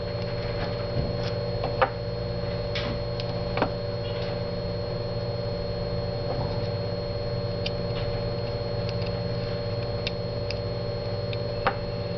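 Small scattered clicks and taps of tools and parts as a BlackBerry Bold Touch 9790 is taken apart, its flex cable connectors being undone. The clearest clicks come about two seconds in, near four seconds and near the end, over a steady electrical hum with a thin high whine.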